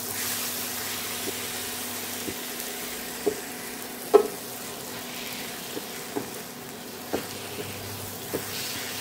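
Mashed roasted eggplant and tomato-onion masala sizzling in a nonstick frying pan as a spatula stirs and mashes it, with a steady hiss and irregular light taps of the spatula against the pan, the loudest about four seconds in.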